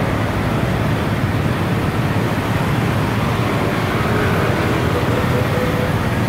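Steady low rumble of street traffic passing nearby.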